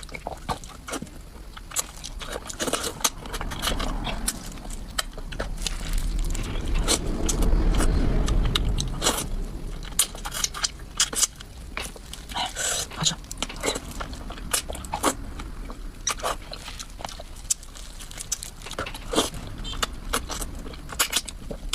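Close-up eating sounds of someone eating fish: chewing with scattered wet clicks and smacks. A low muffled rumble swells about six to nine seconds in.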